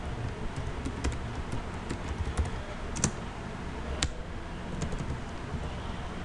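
Typing on a computer keyboard: irregular key clicks spread over a few seconds, the loudest about three seconds in, as a word is typed and then partly deleted.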